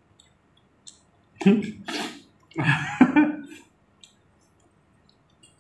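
Two loud slurps of hot chicken thukpa noodle soup, the second starting about a second after the first ends.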